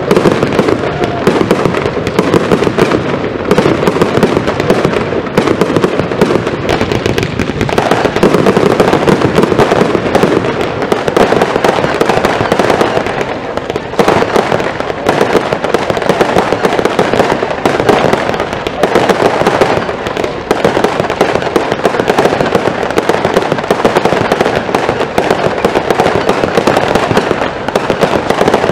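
Zena fireworks firing in a dense barrage: an unbroken, loud stream of rapid bangs and crackles from many ground-launched effects going off together.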